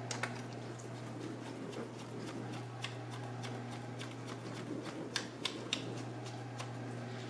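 Scattered light clicks and taps of a screwdriver and fingers on a laptop's plastic base as its screws are worked in, over a steady low hum.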